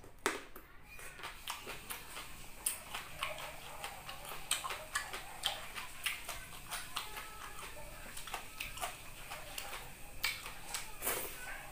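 Close-miked eating sounds: a person chewing, with many small wet mouth clicks and lip smacks coming irregularly, several a second.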